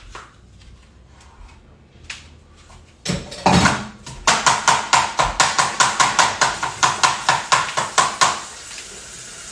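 Kitchen work sounds. First a few light knife taps on a cutting board. About three seconds in, a tap is turned on with a rush of water, followed by a fast, even run of strokes, about five a second, for some four seconds. Near the end steady running water from the faucet is left.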